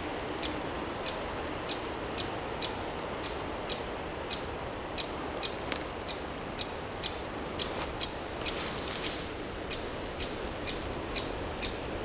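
Handheld EMF meter (electromagnetic radiation tester) beeping in several runs of rapid short high beeps, over regular ticking about twice a second, as it registers a weak electromagnetic field.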